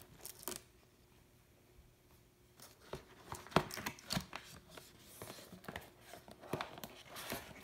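Cardboard box being handled and opened by hand: scattered taps, scrapes and rustles as the lid is pried up and lifted, loudest about halfway through and again near the end.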